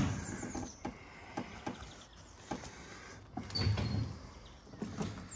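Scattered light clicks and knocks of someone settling into the driver's seat of a utility vehicle and handling the controls, with the engine not yet running.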